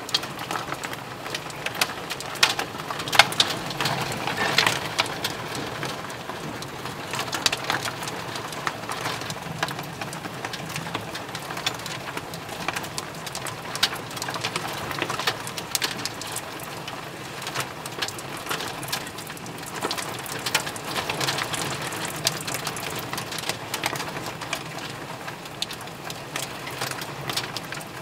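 Hail falling with rain, a steady hiss dotted throughout with sharp clicks of hailstones striking hard surfaces such as the wooden porch deck.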